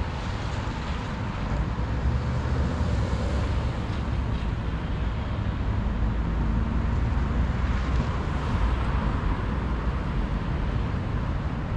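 Road traffic: cars passing on a multi-lane city road, a steady rumble that swells briefly as vehicles go by, about two seconds in and again near eight seconds.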